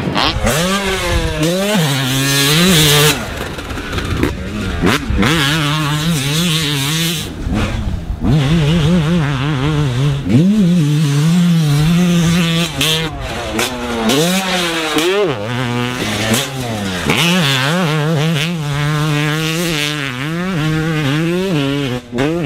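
Two-stroke motocross bike being ridden hard on a dirt track, its engine revving up and dropping back over and over as the rider accelerates, shifts and rolls off into turns.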